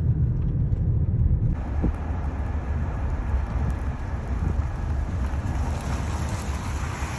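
Bridalveil Fall's falling water rushing, with wind rumbling on the microphone. About a second and a half in, the rush of water becomes fuller and brighter.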